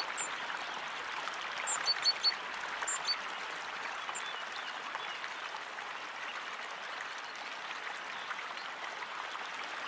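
Steady rush of running water, with a few short high bird chirps in the first three seconds or so.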